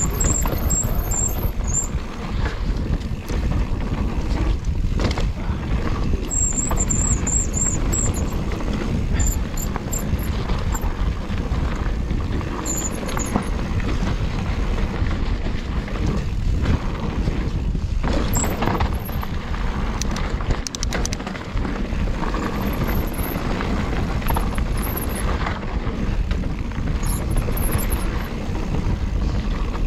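Mountain bike being ridden over rough dirt trail: a steady rumble of wind and tyre noise on the microphone, with frequent clattering knocks and rattles as the bike hits bumps and roots.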